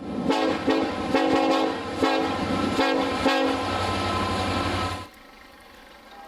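Diesel freight locomotive's multi-note air horn sounding for a road crossing, with several short swells and then a held blast that cuts off sharply about five seconds in.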